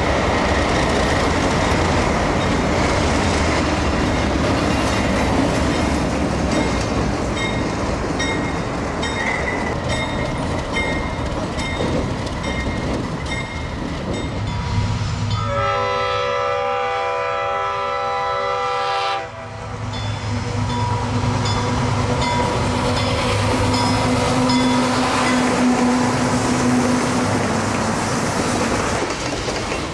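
Alco diesel locomotives working under load, their engines running loudly, with a multi-note air horn sounding for about four seconds around the middle. After a sudden break, a freight train passes close by with engine tones and wheels clicking over rail joints.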